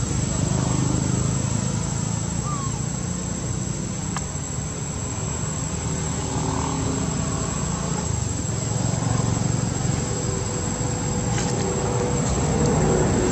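Steady outdoor ambience: insects buzzing continuously over a low, even rumble, with a few faint chirps.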